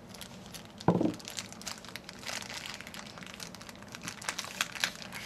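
Crinkling of a foil blind-bag wrapper being torn and pulled open by hand, in many small crackles, with one short thump about a second in.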